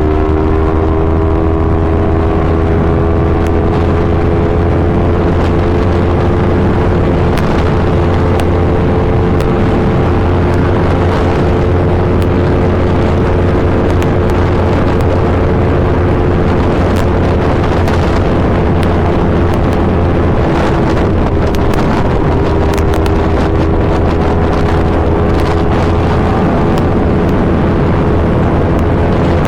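Yamaha R3 parallel-twin engine breathing through an Akrapovic full exhaust system, running steadily under way with its pitch creeping slowly upward and dipping briefly about two-thirds of the way through.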